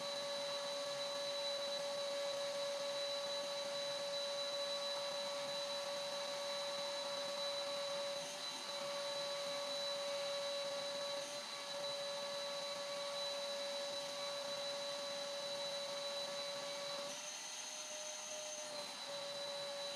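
Vacuum cleaner running steadily through a hose with a brush nozzle, giving a constant high whine over a rushing hiss. Its pitch shifts slightly higher for a couple of seconds near the end.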